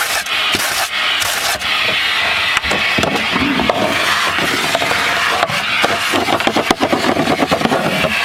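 Vacuum nozzle sucking up sanding dust in a wooden kayak hull, with a steady rushing noise. The nozzle rubs and scrapes along the wood, and grit clicks and rattles through it in the second half.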